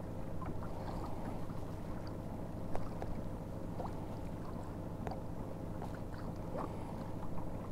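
Fishing boat sitting on the water: a steady low hum with faint scattered ticks and a small knock about three seconds in.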